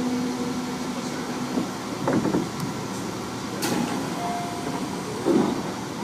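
Inside a Tobu 30000 series electric train carriage: a steady low hum stops about a second and a half in. Then come three short noisy bursts, a brief click and a short higher tone, heard over the carriage's background noise.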